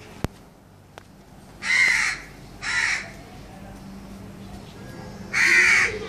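Young pet crow cawing three times, harsh calls of about half a second each, the first two close together and the third a few seconds later. A single sharp click sounds just before the first call.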